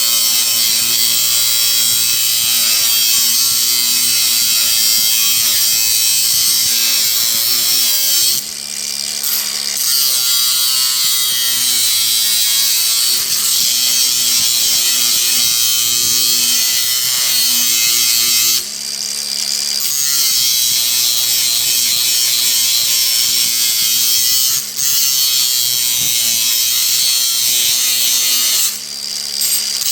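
Angle grinder with a thin cut-off (zip) wheel running continuously while grinding a small metal latch part, its pitch wavering with the load. The level dips briefly four times, about a third of the way in, near two-thirds, and twice near the end.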